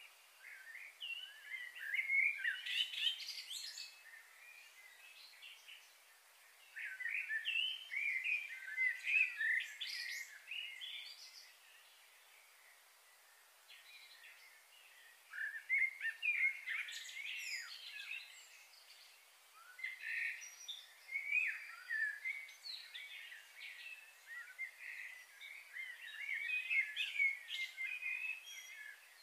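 Small birds chirping and singing in short bouts of quick, twittering notes with brief pauses between, over a faint steady outdoor background.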